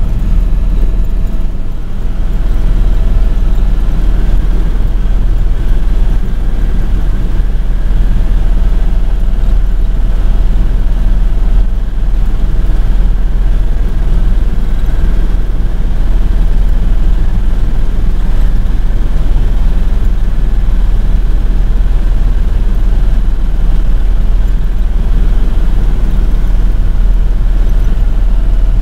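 Helicopter in flight heard from inside the cabin: a loud, steady engine and rotor rumble with a few steady whining tones above it.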